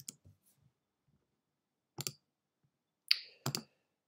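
Quiet, sharp clicks at a computer as presentation slides are advanced: one near the start, one about two seconds in, and a quick pair near the end, with a short hiss just before the pair.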